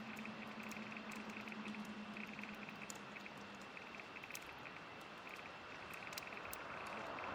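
Campfire crackling, with scattered sharp pops over a steady hiss, and a fast-pulsing high-pitched trill running underneath.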